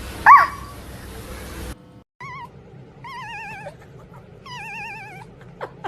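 A cat's short, sharp meow sliding up and down in pitch about a quarter second in, then a series of warbling, wavering calls.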